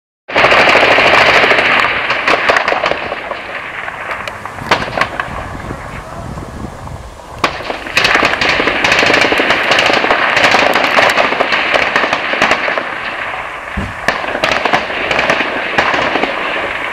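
Heavy gunfire from automatic weapons: a dense, rapid crackle of many shots overlapping, with louder single cracks standing out. It starts abruptly, eases off around the middle, and picks up again about eight seconds in.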